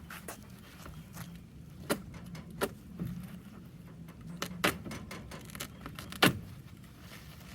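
Pulling apart and handling a fabric-covered pine and panel window valance: a few scattered sharp clicks and knocks, the loudest about six seconds in, over a low steady hum.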